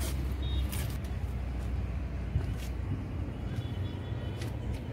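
Steady low outdoor rumble and hum, with a few soft clicks and rustles of plants being handled.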